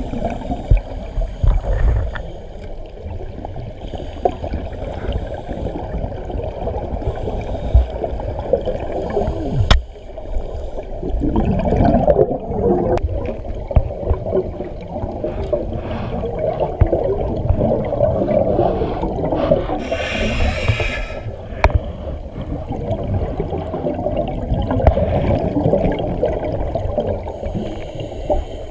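Underwater audio of scuba diving, muffled through a camera housing: the rumbling gurgle of a diver's regulator and exhaled bubbles, with a few sharp knocks and a brief hissing rush of bubbles about two-thirds of the way through.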